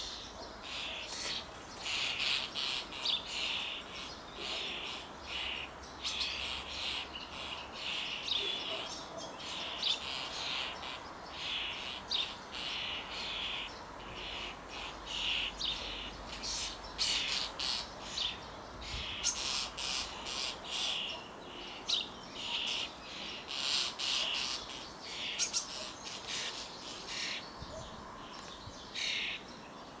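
Common starling nestling close to fledging, begging for food from the nest box: a long series of short raspy calls, several a second, coming in clusters.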